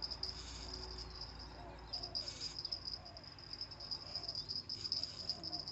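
Insects trilling in a steady, high-pitched chorus, with a few brief, slightly louder hissy surges.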